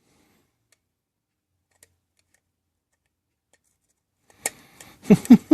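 Near silence, then a sharp plastic click as the retaining clips of a small motion-sensor LED light's housing are pried about four and a half seconds in, followed by two short, loud vocal sounds from the person working on it.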